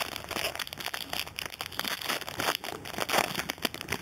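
Shiny foil wrapper of a 2007 Donruss Gridiron Gear football card pack crinkling and tearing as it is handled and ripped open by hand, a dense run of irregular crackles.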